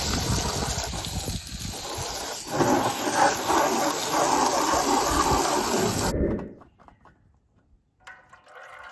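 Liquid spraying and gushing steadily, louder from about two and a half seconds in, then cutting off abruptly about six seconds in.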